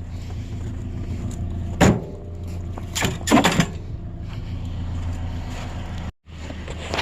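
Vehicle engine running with a steady low hum, broken by a sharp thump about two seconds in and a quick run of knocks about a second later. The sound drops out for an instant near the end.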